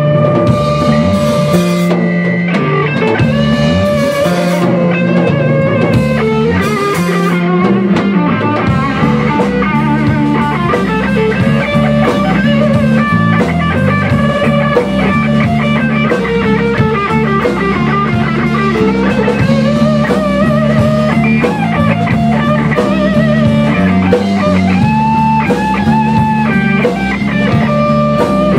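Rock band playing an instrumental passage: electric guitar lead with notes bending in pitch over bass guitar and a drum kit, loud and steady throughout.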